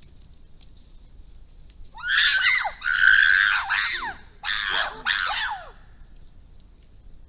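Chimpanzees screaming at a pack of African wild dogs to intimidate them: four loud, high-pitched bursts, several sliding down in pitch, starting about two seconds in and stopping near six seconds.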